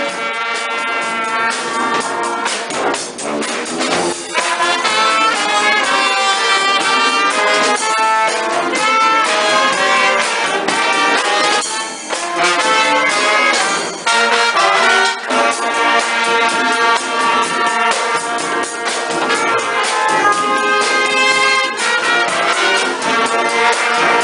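Live brass band playing upbeat music, with trombones, sousaphone and saxophone together over a regular beat. The music gets louder about four seconds in.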